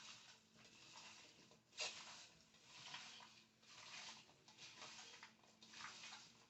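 Near silence, with faint, scattered rustling and handling noises and one sharper click about two seconds in.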